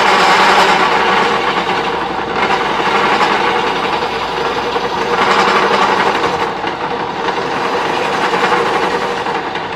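Electric wood lathe running while a hand-held chisel cuts a spinning wooden handle blank: a steady scraping, rattling noise that swells and eases every two to three seconds as the tool works along the wood.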